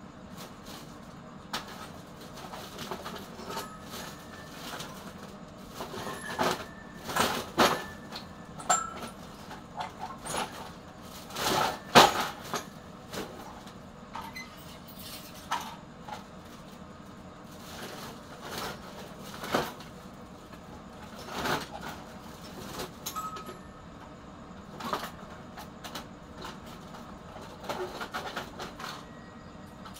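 Old computer motherboards being handled in a woven plastic sack: irregular clacks and knocks of circuit boards against each other, with rustling of the sack, loudest around halfway through.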